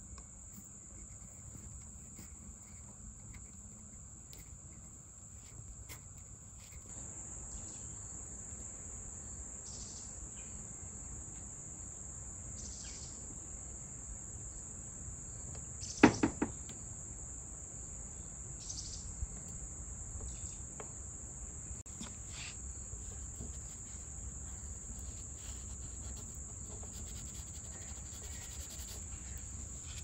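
Faint, steady high-pitched trill like insects, with a few soft taps of hands working on a wooden bed footboard and one sharper knock about halfway through.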